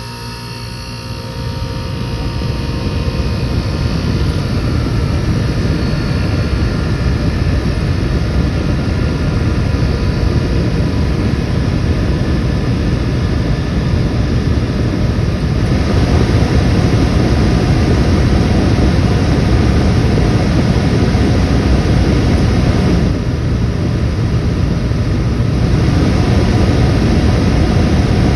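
Vintage window air conditioner running after being plugged in: a loud, steady rush of fan air over the low hum of its reciprocating compressor, building up over the first couple of seconds and then holding.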